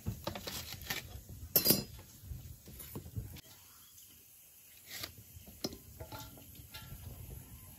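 Small green fruits being sliced on an upright blade held by the foot, the pieces dropping with clinks and taps into an aluminium bowl. A sharper knock comes about two seconds in, with a run of smaller clicks in the second half.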